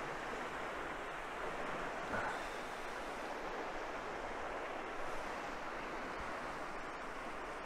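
Steady rush of fast-flowing, swirling river water.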